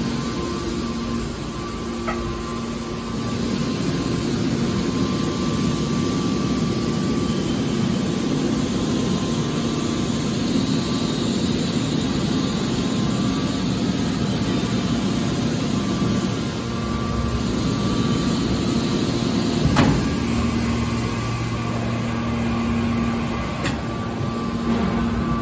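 Hydraulic car baler running: a steady machine hum with a held whine, and sharp metallic knocks about twenty seconds in and again near the end.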